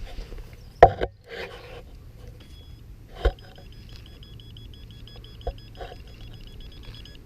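A metal detector beeping rapidly at one high pitch while it is held over a target in a clod of soil, with a couple of sharp knocks in the first few seconds as the soil is handled.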